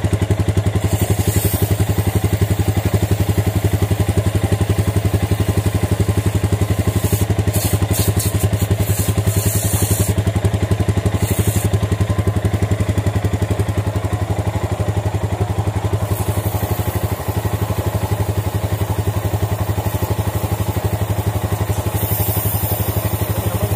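Motorcycle engine idling steadily with an even low pulse, while an aerosol can of chain lube hisses in several short sprays onto the drive chain.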